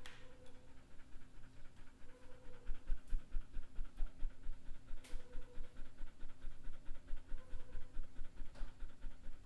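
Rapid, rhythmic panting, about three breaths a second, over a steady low hum.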